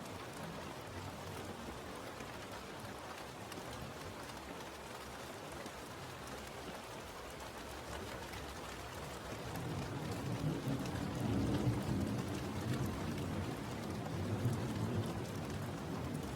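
Steady rainfall. A low rumble of thunder swells up about two-thirds of the way through and rolls on to the end.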